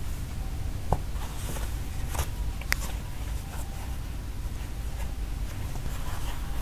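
Hands handling a cardboard watch box and its grey folded insert: a few short light clicks and taps about 1, 2 and 3 seconds in, with soft rustling over a steady low room rumble.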